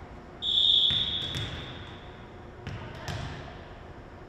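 A referee's whistle blows one steady high blast to authorise the serve, then the server bounces the volleyball on the hardwood gym floor, a few dull thuds.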